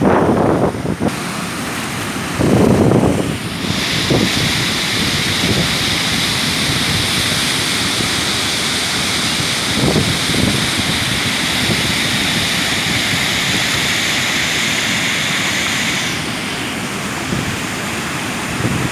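Waterfall rushing with a steady loud roar, brighter and hissier for most of the middle, with low gusts of wind buffeting the microphone near the start and about halfway through.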